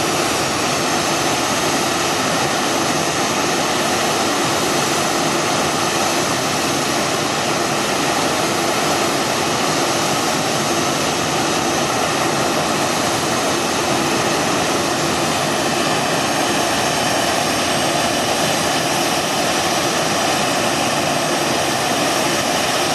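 Boeing 737-800's CFM56-7B turbofan engines running steadily after start-up: an even rush of noise with several high whining tones held level, unchanging throughout.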